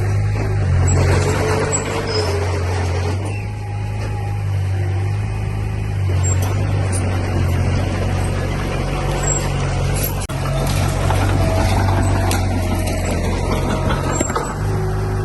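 Heavy earthmoving machinery's diesel engine running steadily, with scattered small metallic squeaks and a brief knock about ten seconds in.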